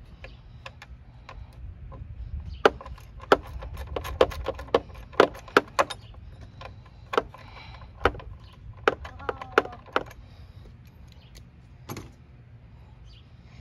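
Ratchet and 8 mm socket loosening the battery hold-down bracket bolt: a run of sharp, irregular metallic clicks and clinks, bunched through the middle, with a last one near the end.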